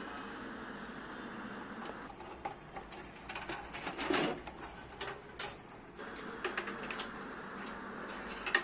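Small plastic clicks and rustles of PC cables and connectors being handled and plugged in, scattered through the middle, over a steady hiss that drops away for a few seconds in the middle.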